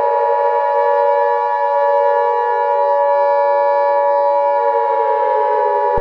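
Civil defense warning siren sounding loudly and steadily, with a lower tone within it slowly sinking in pitch.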